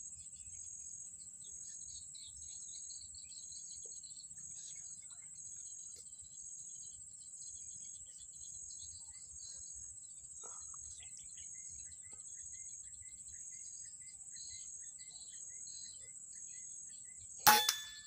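Steady high-pitched insect chirring with a regular pulse, under faint scattered bird chirps. Near the end, a single sharp, loud rifle shot is fired at a perched green pigeon, which the hunter counts as a hit.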